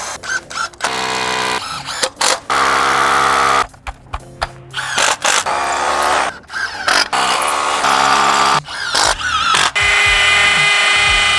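Milwaukee M18 cordless drill running in several bursts, stopping and starting, as it drills anchor holes into concrete.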